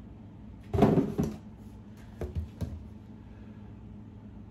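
Handling noise from a cardboard box and wicker baskets on a wooden table: a loud rustling knock about a second in as the box is moved aside, then a few light knocks as a basket is set down.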